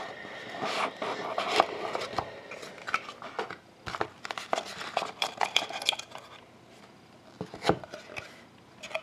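Hands handling and opening a small black cardboard box of Panini Dominion hockey cards: a run of short taps, scrapes and rustles of cardboard, with a sharper knock near the end as the lid comes off.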